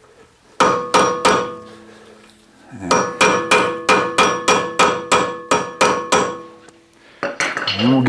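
Hammer tapping a hex (Allen) bit socket into the rust-packed Allen-head screws that hold a VW bus's front brake rotor to the hub, seating the bit fully so the screws can be broken loose. The metal-on-metal blows ring: three near the start, then a quick run of about a dozen, roughly three or four a second.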